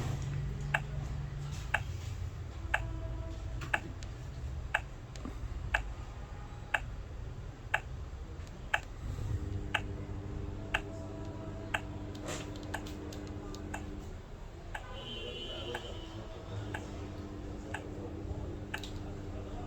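Wireless burglar alarm control panel ticking about once a second in its exit-delay countdown, after being armed and before the system goes live.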